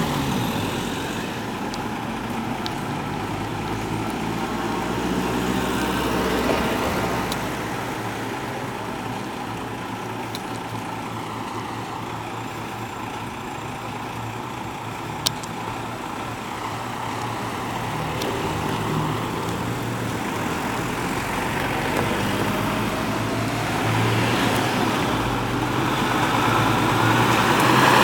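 Heavy fire engine's diesel engine running and pulling away, mixed with road traffic noise, with one sharp click about halfway through. The engine grows louder near the end.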